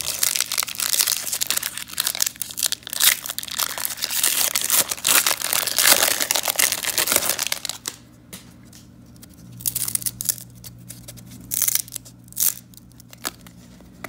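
Foil wrapper of a 1993-94 Fleer Ultra hockey card pack crinkling and tearing as it is opened, for about eight seconds. After that, scattered sharp clicks as the stiff, stuck-together cards are handled and separated.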